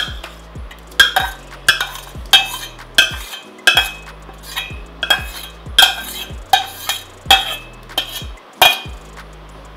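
Steel spoon scraping and clinking against the inside of a small steel pan as thick mango pulp is scraped out, a sharp clink about every two-thirds of a second.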